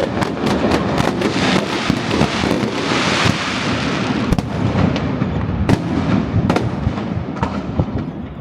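Aerial fireworks bursting in rapid succession: a dense crackle of many sharp bangs, thickest a few seconds in, then thinning out to separate reports near the end.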